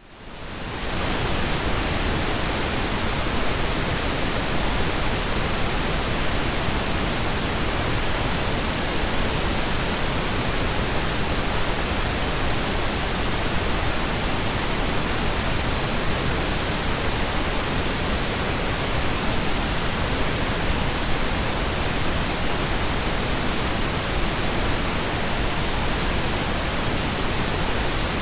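Steady pink noise, an even hiss with no tones or rhythm, fading in over about the first second and then holding constant.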